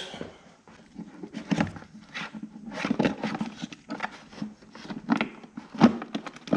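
Scattered knocks, clicks and scrapes of a motorcycle battery being handled: the old battery is lifted out and the new one set into the battery box.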